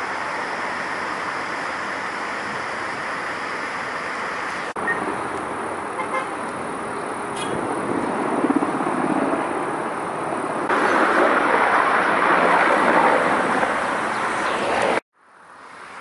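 Steady vehicle and engine noise at a roadside, getting louder about eleven seconds in and cutting off abruptly near the end.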